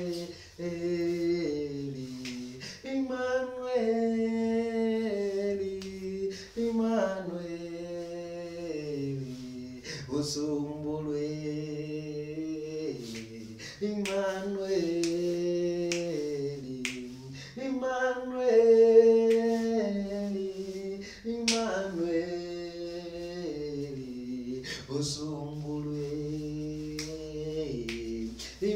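A man singing a self-composed gospel song unaccompanied, holding long notes in phrases that step down in pitch. Sharp clicks come every few seconds.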